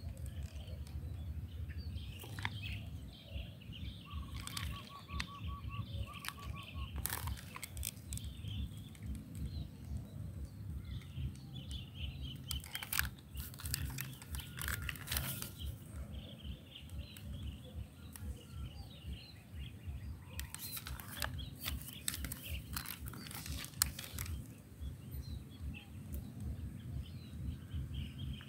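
Birds chirping over a steady low rumble, with a short trill a few seconds in. Sharp clicks and clacks from handling a spring airsoft rifle come in clusters, most thickly about 20 to 24 seconds in.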